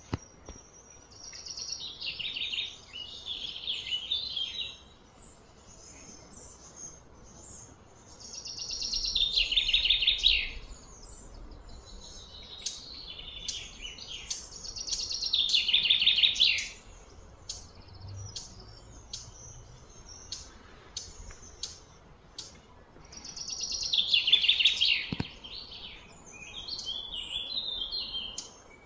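A songbird singing, repeating phrases of fast, high trilled notes, each two to three seconds long, every several seconds.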